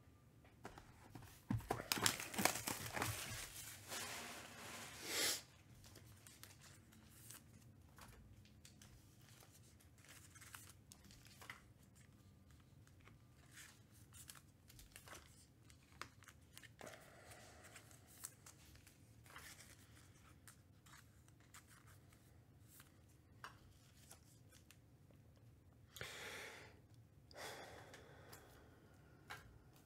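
Trading-card pack wrappers being torn open and crinkled: a loud tear and crackle lasting about four seconds near the start, and another shorter tear and crinkle about 26 seconds in. In between come faint clicks and light rustling of cards being handled.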